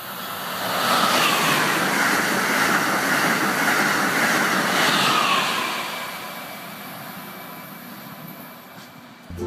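High-speed train passing at speed: a rushing sound that swells over about a second, holds for several seconds with a faint whine in it, then fades away.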